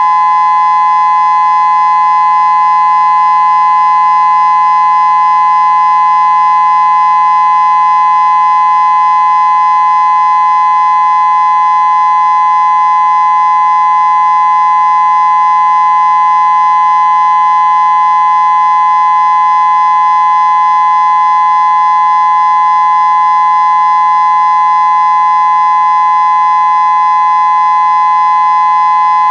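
Federal Signal Modulator 6024 electronic tornado siren sounding its steady alert signal: one loud, high, unwavering tone with no rise or fall.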